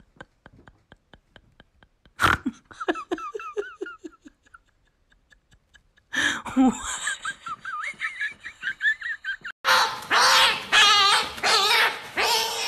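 People laughing in bursts, louder and more continuous in the last few seconds, with a row of faint quick ticks at the start.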